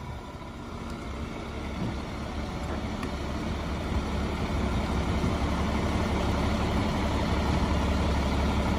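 Diesel engine of a fire engine running low and steady as the truck creeps forward out of the station, growing gradually louder.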